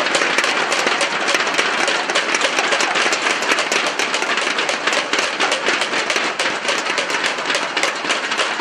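Crowd applause mixed with the sharp clacking of inflatable thunder sticks beaten together, a dense, steady patter of many claps a second.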